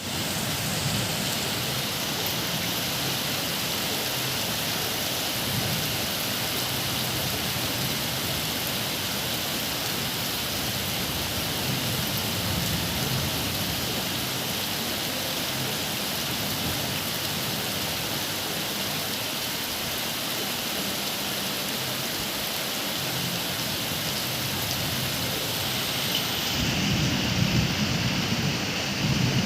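Steady rain falling. Near the end a deeper, louder rumble rises beneath it.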